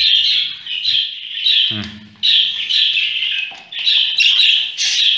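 Budgerigar chicks giving harsh, raspy calls over and over, about three a second, with a short break near two seconds in.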